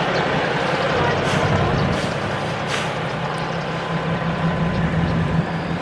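Road traffic with a steady low engine hum, and a few short hisses in the first three seconds.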